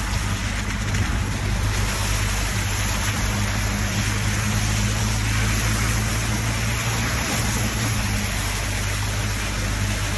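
Jeep engine running at a steady pitch while the tyres churn through a shallow river, with a continuous rush of splashing water.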